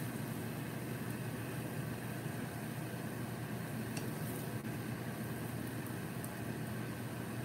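Steady low hum of a running motor, with a faint click about four seconds in.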